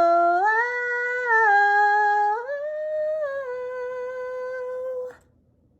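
A woman singing unaccompanied, holding a wordless drawn-out vowel that steps up and down through several notes, then stopping abruptly about five seconds in.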